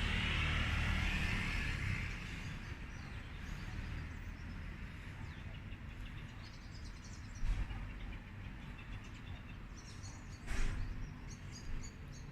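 Outdoor ambience: a passing vehicle fades away over the first couple of seconds, leaving a low steady rumble with faint bird chirps. There are two short, sharper sounds partway through.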